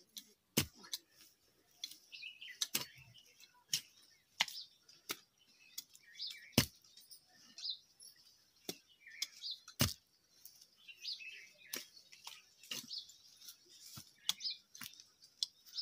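Hand hoe striking into earth in irregular blows, a sharp thud every second or two with a few louder strikes, while small birds chirp throughout.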